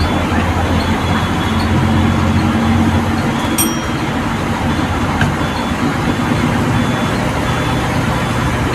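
GSRTC express bus engine running steadily under way, heard from inside the cab, with the hiss of rain and wet-road noise; the engine note drops about three seconds in, and a single short click sounds just after.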